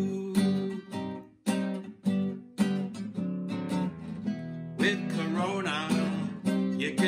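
Nylon-string classical guitar strummed in an instrumental break between sung lines. The chords come as separate strokes with short gaps in the first half, then as steadier strumming.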